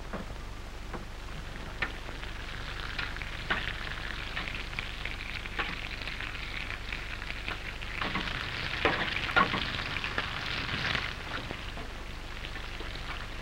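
Bacon sizzling and crackling in a frying pan, the crackle growing louder about two-thirds of the way through, over a steady low hum.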